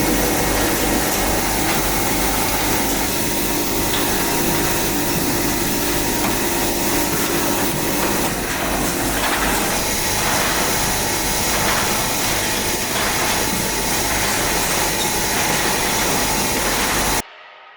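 Steady machine noise, a whirring hiss like a fan or extractor, cuts off abruptly near the end and leaves a fading ringing tone.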